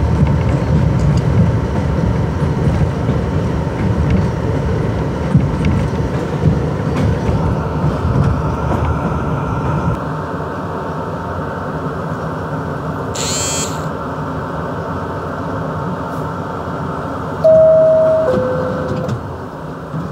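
NYC subway R62A car running on elevated track with a heavy rumble that drops off suddenly about halfway as the train comes to a standstill. A brief high rasping burst follows, then near the end the loud two-tone descending door-closing chime.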